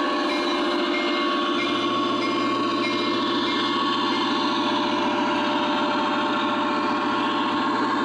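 Lionel O-gauge CSX diesel locomotive rolling past, its onboard sound system playing a steady diesel engine rumble over the motor and wheel noise of the train on the track. The horn's last notes fade in the first second or so.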